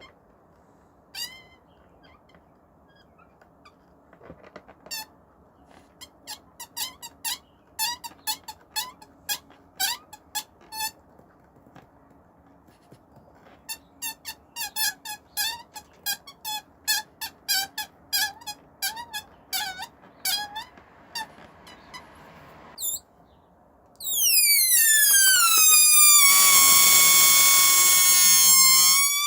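Air let out of a stretched rubber balloon neck, squeaking in many short high chirps. Near the end it breaks into one long, loud squeal that falls in pitch and then holds steady.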